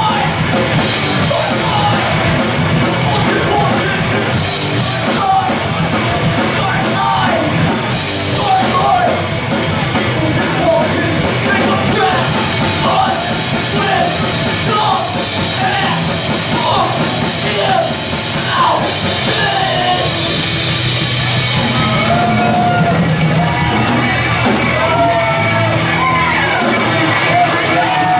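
Hardcore punk band playing live: distorted electric guitars, bass and drums under a shouted lead vocal.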